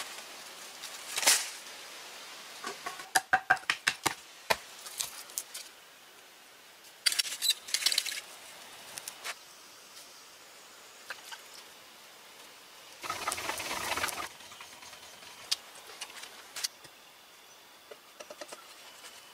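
Hands working soil and wet clay: scattered scrapes, taps and rustles, with a quick run of small taps about three seconds in and a longer rasping scrape about thirteen seconds in.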